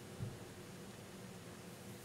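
A single soft, low thud about a quarter second in as a piece of lipstick is dropped onto a tray of slime, over a faint steady hum.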